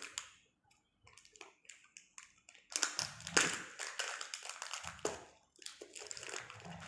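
Hands opening a surprise egg and its plastic toy packaging: scattered taps and clicks, then a denser stretch of rustling and crackling from about three seconds in.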